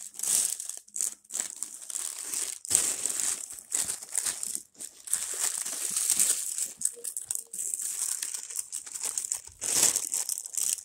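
White plastic shipping mailer and clear plastic wrapping crinkling and rustling in irregular handfuls as a purse is pulled out of them.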